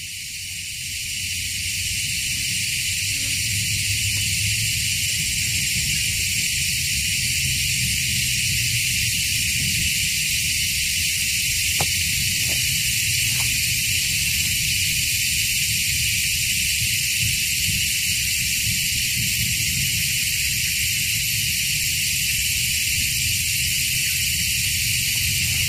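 Steady, even high-pitched hiss of an outdoor insect chorus over a low rumble, swelling up over the first two seconds, with a few faint ticks about twelve to thirteen seconds in.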